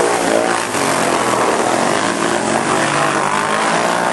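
Several ATV (four-wheeler) engines revving hard, their pitch rising and falling.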